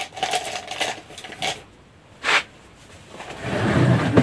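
Small hard items clicking and clattering as they are picked up and handled, with a sharper knock about two seconds in. Near the end there is a louder rustling rumble of handling close to the microphone.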